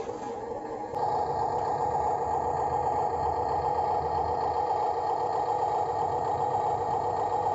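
A remote-control construction vehicle running with a steady idling hum that holds one pitch, growing a little louder about a second in.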